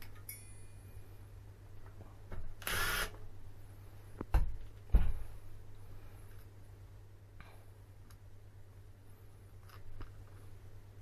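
Hand tools working on the screws of an e-bike hub motor's cover: a short rasp, then two sharp metallic knocks about half a second apart, with a few faint clicks later, over a steady low hum.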